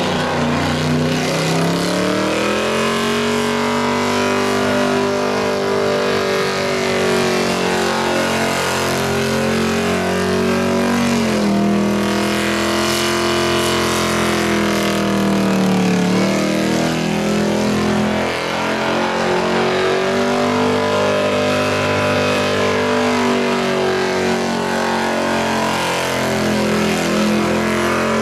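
Holden Commodore doing a burnout: the engine is held at high revs with the rear tyres spinning, the revs dipping and climbing again a few times, about a second in, around the middle and near the end.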